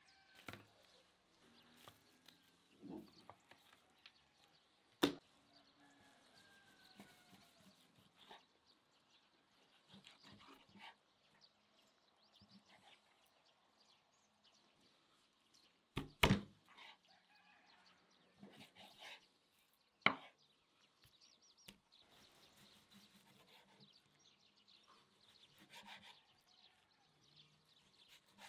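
Kitchen knife cutting raw fat on a wooden cutting board: quiet slicing and rustling broken by a few sharp knocks on the board, the loudest a double knock a little past halfway. Faint bird chirps in the background.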